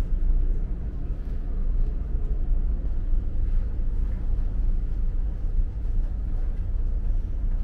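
Steady low rumble of a large ferry's engines and hull under way, heard inside the passenger deck.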